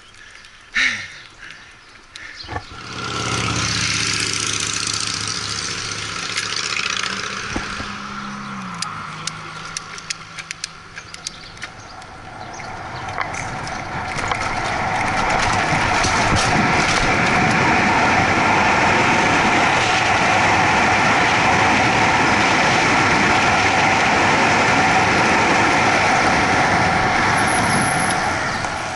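Bicycle coasting fast downhill: a loud, steady rush of wind and tyre noise builds from about halfway through and holds. Earlier, a motor vehicle's engine hum drops in pitch.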